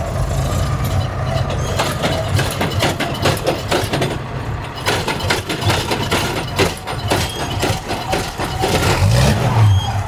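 Star 266 army truck's diesel engine being tow-started because its batteries are dead. A dense rapid clatter runs under the sound of the engines, and near the end the note rises as the engine catches.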